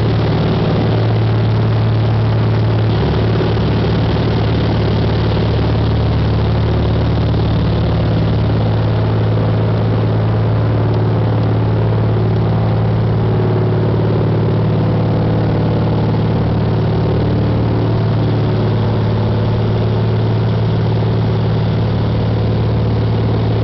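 Single-engine propeller airplane's engine and propeller running steadily as a low drone, heard from inside the cabin through a climb and banking turn.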